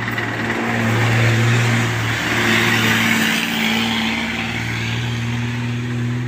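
Heavy diesel engine running steadily at idle with a low hum. A haul dump truck drives past, its rushing noise swelling about two to four seconds in.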